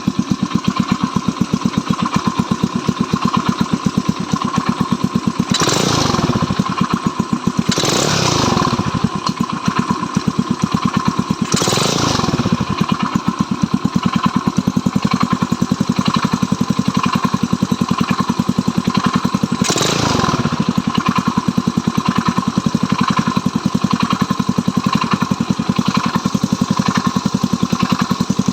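Stels Kapitan engine idling low and evenly, which the owner calls running normally even at about 500 rpm after a carburettor adjustment. Four short, louder bursts of noise break into the idle, the last about two-thirds of the way through.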